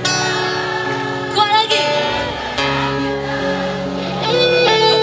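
Live band music: an instrumental passage with a guitar carrying the melody in sustained, bending notes over the band.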